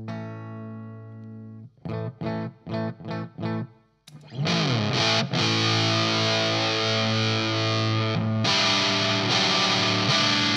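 Electric guitar played through a Sola Sound Hammer House MkIV Tone Bender fuzz pedal into a Marshall amp and 4x12 cabinet. A ringing chord and five short chord stabs, then, about four seconds in, a much louder, thick fuzzed sound with held distorted chords.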